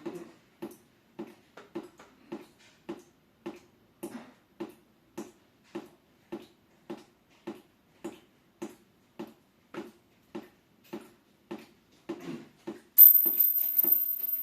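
Water dripping steadily from a leaking Hitachi air conditioner, nearly two drops a second, each landing with a short hollow plink. Near the end a much louder burst of noise with a thin high whistle breaks in over the drips.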